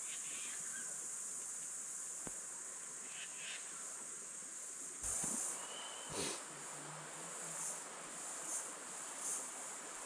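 Rainforest insect chorus, a steady high-pitched buzz that does not let up. In the second half come a few brief louder rustles and knocks.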